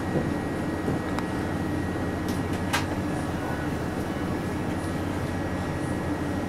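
Steady drone of a commercial kitchen's extraction hood and gas range running, with a couple of faint clicks about one and three seconds in.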